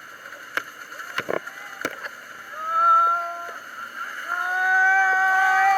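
A motorboat runs steadily while a few knocks sound in the first two seconds. From about halfway in, people's voices rise in long, held shouts or whoops that get louder toward the end.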